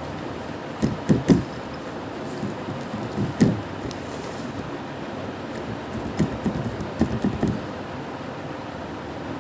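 Steady background hiss, with a few soft, low thumps and knocks from hands handling homemade play dough: a cluster about a second in, one at around three and a half seconds, and another cluster around six to seven seconds.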